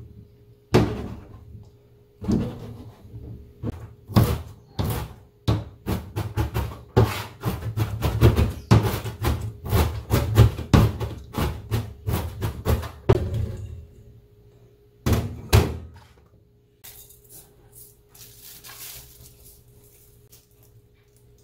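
Kitchen knife chopping oyster mushrooms on a plastic cutting board: a run of quick, irregular knocks on the board that stops about three-quarters of the way through, leaving only faint light sounds.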